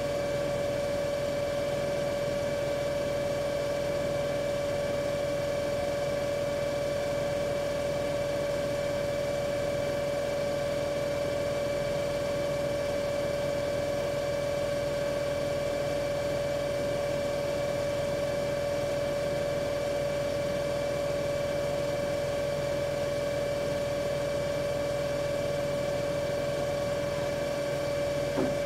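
Siemens iQ500 WM12T80TR 9 kg front-loading washing machine in its high-speed spin: a steady, even whine of motor and drum at one unchanging pitch, with no knocking or roar. It is the normal sound of a healthy machine whose shock absorbers and drum bearings are sound.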